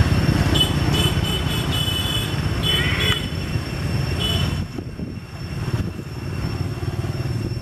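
Low rumble of road traffic and engines, which drops away a little over halfway through. Several short high squeaks or chirps sound over it in the first half.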